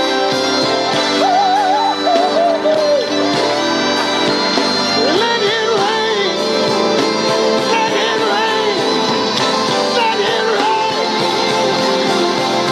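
Music with singing: a sung melody over sustained instrumental chords and guitar, held at a steady level.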